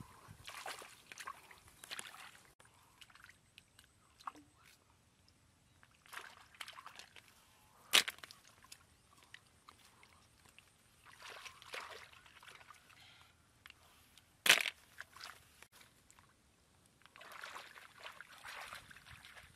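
Hands sloshing and groping in shallow muddy water among reeds while picking snails, in several short spells of splashing and rustling. Two sharp knocks stand out, one about eight seconds in and another about six seconds later.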